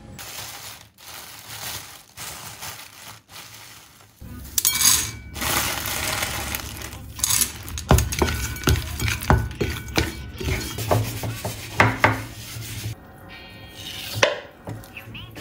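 Kitchen work: dishes and cooking utensils knocking and clinking, with a run of sharp knocks from about eight seconds in.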